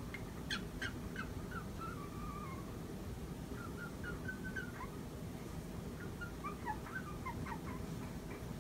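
A cockatoo making a run of soft, squeaky chirps and short wavering calls, with a brief pause partway through.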